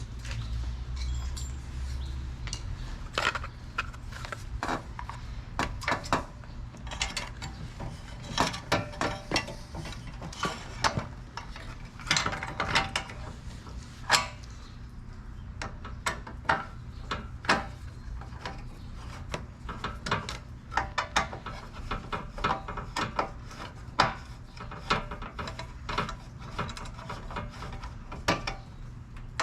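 Hand tool work on a pop-up headlight assembly: irregular runs of rapid clicking like a ratchet wrench being worked, mixed with small knocks of parts being handled, over a steady low hum.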